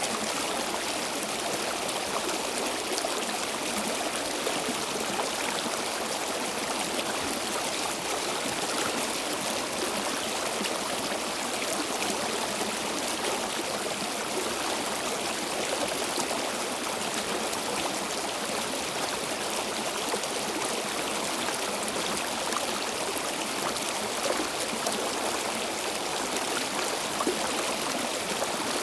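Stream water flowing steadily over stones, with a continuous rush and small trickling splashes.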